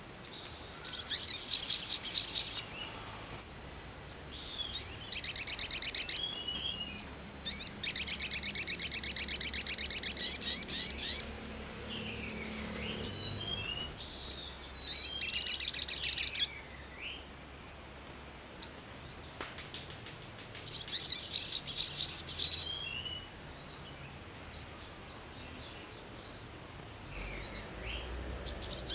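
Male olive-backed sunbird (sogon) singing: about six bursts of high, rapid trilling, each one to four seconds long, the longest near the middle, with short single chirps in the gaps.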